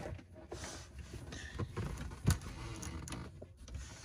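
A cable being pulled by hand through a bundle of wiring inside a cabinet, its jacket rustling and scraping against the other wires and panels. A few knocks come through, the loudest about two seconds in.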